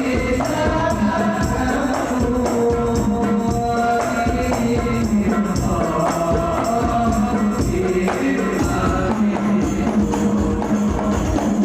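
Shalawat devotional singing: voices in unison holding long, sliding melodic lines over a steady beat of hand-struck frame drums with jingles.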